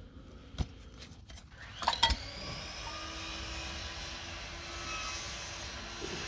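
Knocks and metallic clanks as cut-open catalytic converter shells with metal cores are handled. The loudest clank, with a brief ring, comes about two seconds in, followed by a steady hiss.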